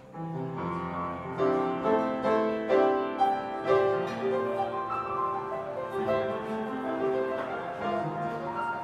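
Live jazz group playing, the piano most prominent with chords and melody lines over low double-bass notes and light cymbal ticks; the music steps up in volume just after the start.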